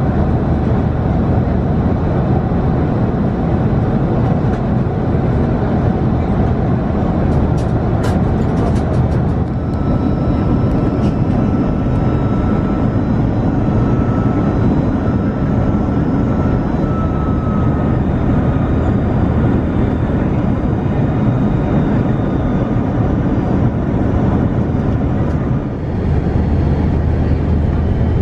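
Steady cabin noise of an Airbus A330-200 from inside the passenger cabin on descent: engine and airflow noise, deep and even. A faint high whine runs through the middle, and there are a few light clicks about eight seconds in.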